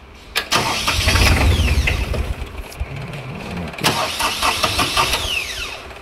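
Outlaw mini skid steer's engine being started: a click, then the engine cranking and turning over for several seconds. It eases off briefly and picks up again, not yet settled into a steady idle.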